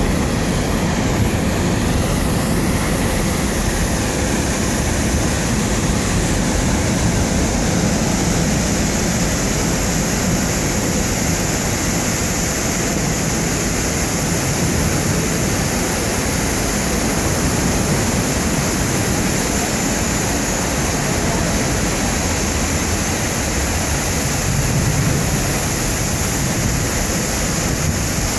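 Multnomah Falls: a steady rush of falling water plunging into its pool, even and unbroken.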